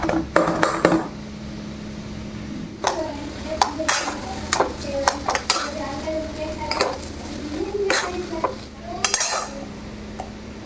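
Metal spatula scraping and knocking against a non-stick kadhai as spiced mashed potato filling for aloo paratha is stirred, some strokes leaving a short metallic ring. In the first second a potato masher clinks against a steel bowl.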